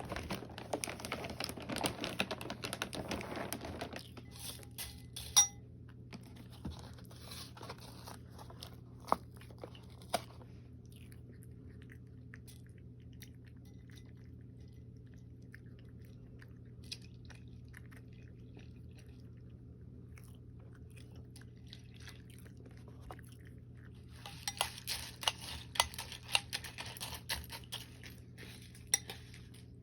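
Crunchy chewing close to the microphone, in a dense run at the start and again near the end, with scattered crunches and a steady low hum between.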